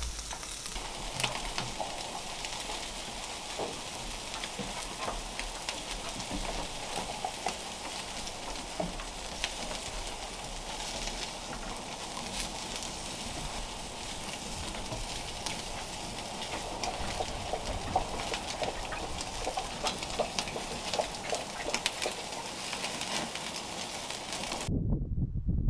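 Meat sizzling on a grill grate over a wood fire, a steady sizzle with many small pops and crackles. Near the end it cuts off abruptly to a low rumble.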